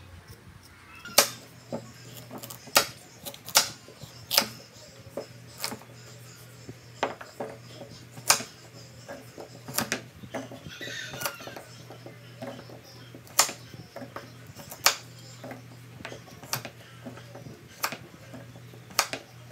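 Kitchen knife chopping carrots on a bamboo cutting board: sharp, irregular knocks of the blade on the board, roughly one a second.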